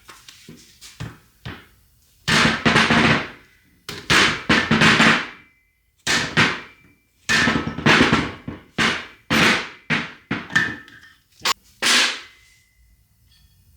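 Irregular hammer blows on a Toyota front hub, knocking the old bearing out. The blows are a mix of light taps and heavy strikes, and a few leave a brief metallic ring.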